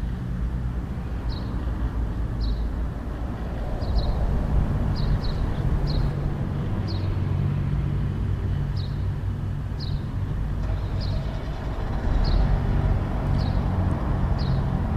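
A Kenworth truck's diesel engine idling steadily, with a small bird chirping in short, falling notes about once a second.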